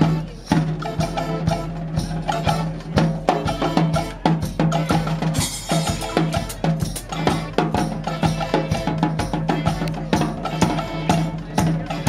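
Live street brass band playing: bass drum, snare drums and cymbals beat a busy rhythm under horns and a repeating low bass note, with a cymbal-like wash about five seconds in.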